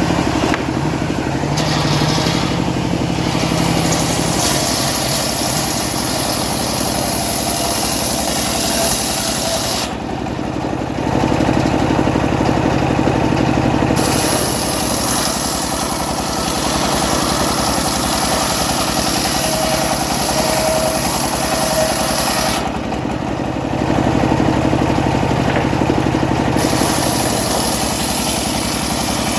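Homemade engine-driven sawmill running steadily while cutting teak. The saw's high hiss drops out twice for a few seconds, about ten and twenty-three seconds in, while the engine keeps running.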